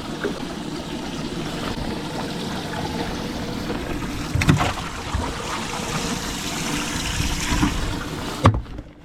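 Steady rushing and trickling of water in a fishing boat, with a couple of knocks about halfway through and near the end.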